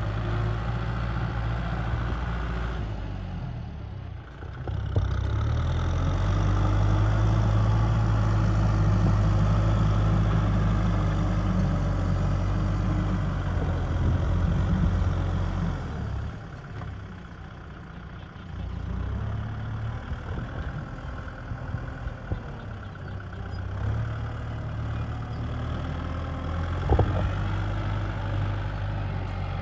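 Kubota M6040SU tractor's diesel engine running steadily, its sound dipping briefly about three seconds in, louder for a stretch after that, and falling off again at about sixteen seconds before settling at a middle level.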